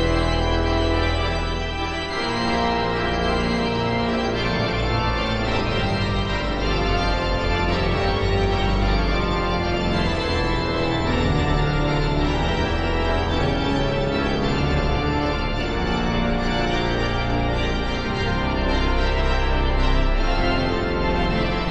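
Organ music played on the manuals and pedals: sustained chords over deep pedal bass notes.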